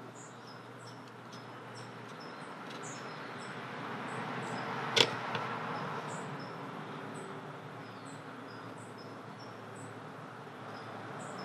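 Small metal parts being handled in a 1940s Plomb ratchet head as the pawl spring is pushed into place with a screwdriver, with one sharp metallic click about five seconds in. Short high chirps repeat in the background.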